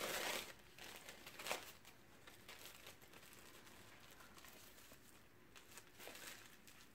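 Crinkling of a dog-coat wrap being folded around a section of a Yorkshire terrier's hair, loudest in the first half second and again briefly about a second and a half in, then faint handling rustles.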